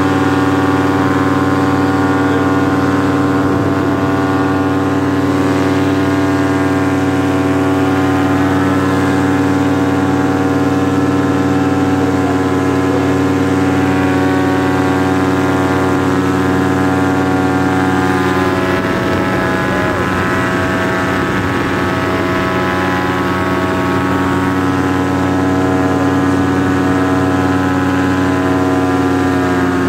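Paramotor engine and propeller running at steady cruise power in flight, an even drone that holds one pitch throughout. Wind buffets the microphone for a few seconds about two-thirds of the way in.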